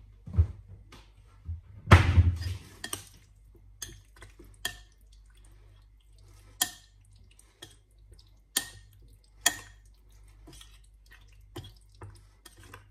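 Metal spoon clinking and scraping against a glass mixing bowl while chicken pieces are stirred in a thick yogurt-spice marinade: sharp separate clinks every second or so, some with a short glassy ring. A louder thump comes about two seconds in.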